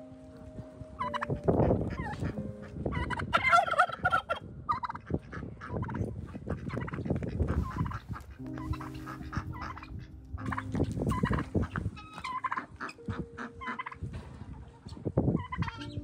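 Domestic tom turkey gobbling, a rapid rattling warble repeated over several seconds.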